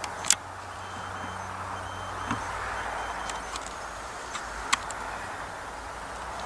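Steady background hiss with a faint low hum and a few scattered sharp clicks.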